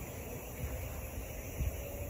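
Low, uneven rumble of wind on the microphone, with a faint steady tone in the background.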